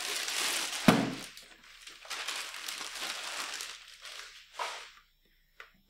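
Thin plastic bag crinkling and rustling as it is worked off a folded plastic baby scale, with one sharp knock about a second in.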